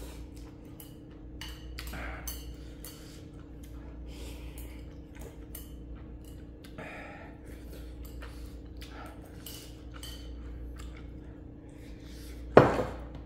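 A person eating ramyeon: utensils clink against the dish between short slurping and breathing sounds. A sharp clatter about twelve and a half seconds in is the loudest sound.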